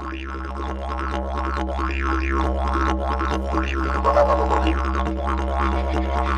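Didgeridoo drone opening a song, a steady low note with its overtones swept up and down in repeated arcs, swelling gradually louder through the first seconds.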